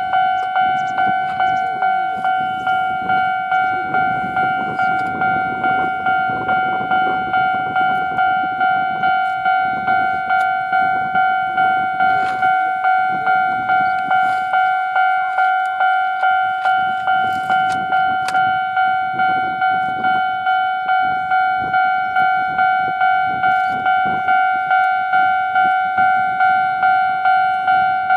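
Japanese level-crossing warning bell ringing steadily, a repeated electronic ding about one and a half times a second. Underneath it, a Chichibu Railway electric locomotive and coal hopper wagons rumble and click over the rails.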